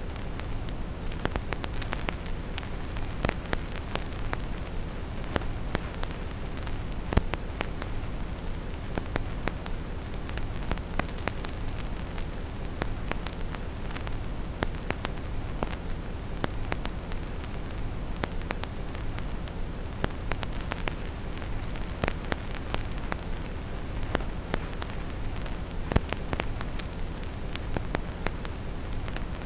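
Vinyl record crackle: irregular small clicks and pops from a needle in the groove, over a steady deep brown-noise rush, with a couple of louder pops.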